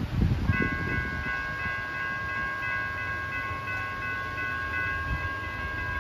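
Railroad grade-crossing warning bell starts ringing about half a second in and keeps on with a fast, steady ring as the crossing signals activate for an approaching train. Wind rumbles on the microphone at the start.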